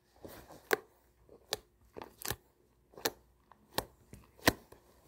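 Butter slime being squeezed and pressed in the hands, giving a series of short clicking pops about every three-quarters of a second, with fainter clicks between.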